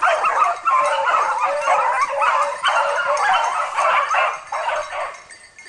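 A pack of beagles baying on a wild boar in a chorus of overlapping high yelps and bays, the hounds giving voice as they work the boar. The calling thins out and fades near the end.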